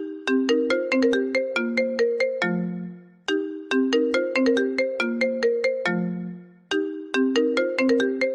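iPhone ringtone playing: a short melody of quick struck notes that repeats about every three seconds, with a brief pause between repeats.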